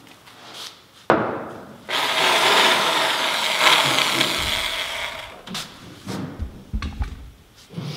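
Handheld corded electric sheet-metal shear run free, not yet cutting, with its blades freshly lubricated with WD-40: the motor starts suddenly about a second in and runs steadily for about four seconds, then stops. A few short knocks follow near the end.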